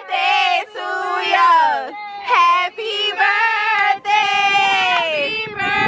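A high female voice singing a melody, with long held notes and pitch slides.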